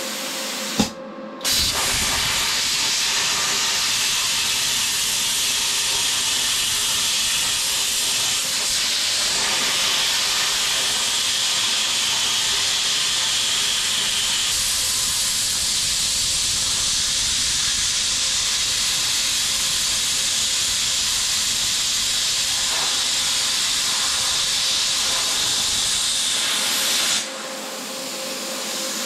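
Titanium 65 plasma cutter cutting 3/4-inch steel plate: a loud, steady hiss of the arc and air jet. It starts after a brief pop about a second in, runs on evenly, and eases off near the end.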